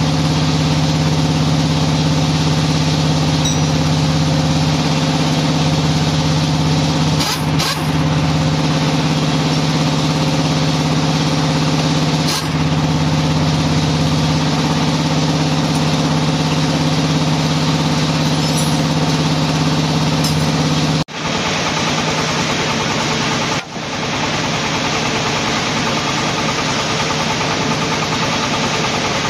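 Diesel truck engine idling steadily with a strong low hum. About 21 seconds in the sound changes abruptly to a thinner, hissier steady drone.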